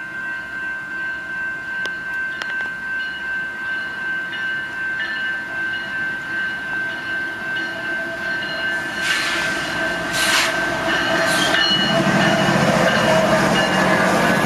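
Railroad crossing bell ringing steadily as an intermodal freight train approaches. Near the end the lead diesel locomotive, a GE ES44AC, grows louder as it nears, with a few brief hissing bursts just before.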